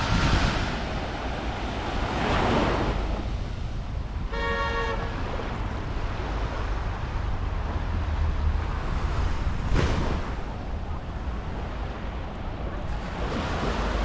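Sea surf washing onto a sandy beach in several swells, with wind buffeting the microphone as a low rumble. A short horn toot sounds once, about four seconds in.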